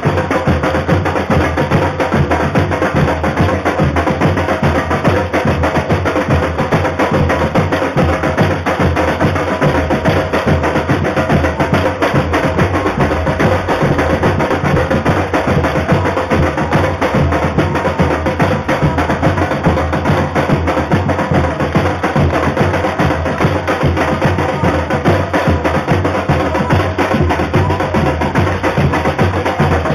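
A street carnival drum band (bateria) playing samba percussion loudly without a break: bass drums under a dense, fast pattern of sharp drum strokes.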